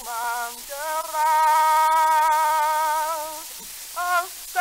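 Solo male voice singing, played back from an old home-recorded phonograph cylinder, under steady surface hiss. A few wavering notes, then one long held note from about a second in to past three seconds, and a short phrase near the end.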